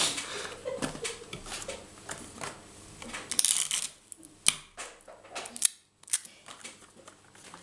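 Stiff paper pieces being handled and set down on a wooden table: scattered rustles, light taps and clicks, with a louder rustle a few seconds in.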